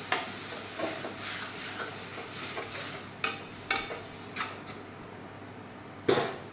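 A spoon stirring and scraping tomato-onion masala frying in a kadai, with a run of quick scrapes and knocks against the pan that thin out, then one loud clank near the end.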